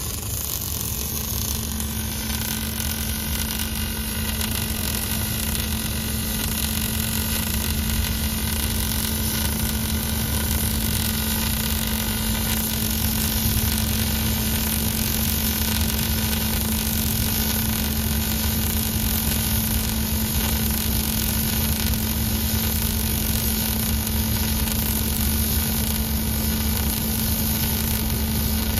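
Robotic arc welding on a steel beam: a steady arc hiss with a steady low hum that comes in about a second in and holds evenly.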